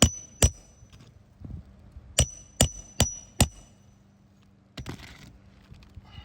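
Hammer driving nails into a replacement roofing shingle: two strikes, then a steady run of four, each with a high metallic ring. A short scraping rustle follows near the end.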